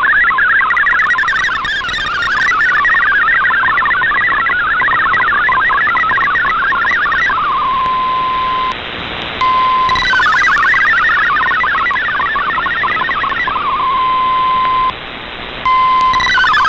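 Shortwave digital-mode data signal from the RadioGram broadcast: MFSK tones warbling rapidly between about 1 and 2 kHz over receiver hiss. Twice the data stops on a single steady tone, drops briefly, and then starts again.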